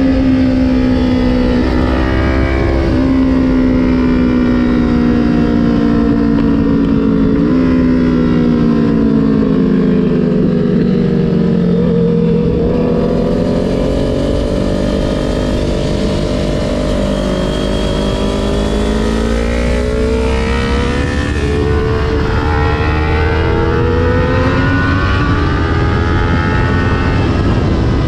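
2020 Kawasaki Ninja 400's parallel-twin engine from the rider's seat. The revs sink slowly for the first dozen seconds as the bike slows on engine braking, then rise and fall a few more times through the curves.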